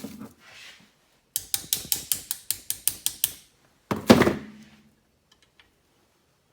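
Hand-tool handling at a workbench: a knock, then a quick, even run of about a dozen sharp mechanical clicks over two seconds, then a loud knock with a short clatter.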